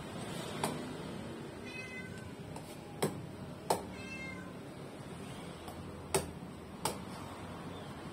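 A cleaver strikes into the spiky husk of a durian in sharp knocks, about five in all. A cat meows twice, briefly, about two seconds in and again about four seconds in.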